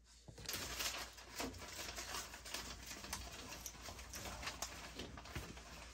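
Irregular rustling and crinkling of a long paper backing strip being handled at the top of the furnace, with small scrapes and clicks.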